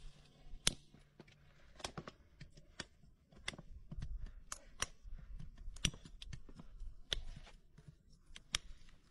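A farrier's cutting tool snipping into the horn of a Shire horse's hind hoof during a trim. About ten crisp, sharp cuts come at uneven intervals of roughly half a second to a second.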